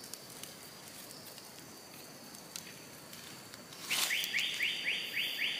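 A bird calls about four seconds in: a quick run of about six rising whistled notes, some four a second, over a steady high-pitched insect drone.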